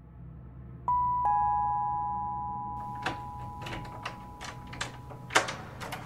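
Two-tone doorbell chime sounding a falling ding-dong: a higher note, then a lower one a third of a second later, both ringing on for several seconds. Over the second half come a run of knocks and clicks, the loudest about five and a half seconds in, which cuts the chime off.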